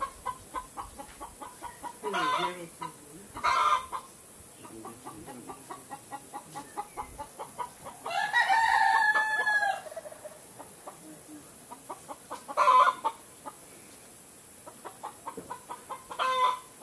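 Chickens clucking in short calls every few seconds, and a rooster crowing once, a long held call about eight seconds in.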